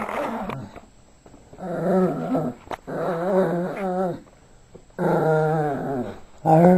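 Yorkshire terrier growling in play: a brief growl at the start, then four long, wavering growls of about a second each with short pauses between.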